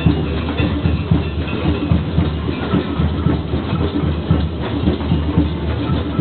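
Drum circle: many hand drums played together in a steady rhythm of low beats.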